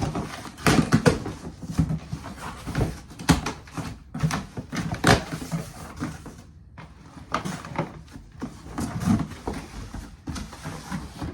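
Irregular knocks, clicks and rustles of objects being handled.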